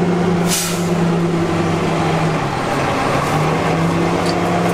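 Diesel engine of a 5-ton 6x6 army truck running steadily up close, its pitch dipping briefly about halfway through and recovering, with a short hiss about half a second in.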